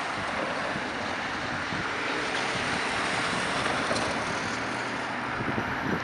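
Steady rushing outdoor noise of wind and distant city traffic, even throughout with no distinct events.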